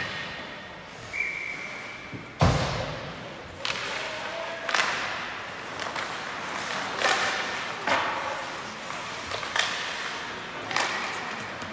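Ice hockey play echoing in a rink: a run of sharp knocks and thuds, roughly one a second, from sticks, puck and bodies against the boards. The loudest is a heavy thud about two and a half seconds in.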